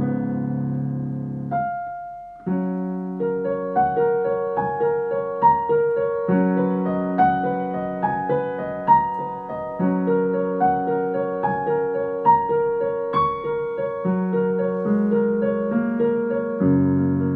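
Solo piano music: a held chord dies away about two seconds in, then a gentle, flowing passage of single notes and broken chords begins.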